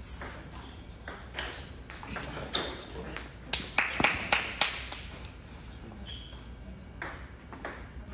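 Celluloid-type table tennis ball clicking off paddles and the table in a short rally, some hits with a brief high ping, then a quick run of bounces about three and a half seconds in, and two last taps near the end.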